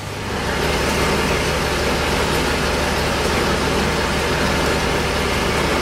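Steady machine noise: a low, even hum under a broad hiss that holds without a break, like an engine or other equipment running.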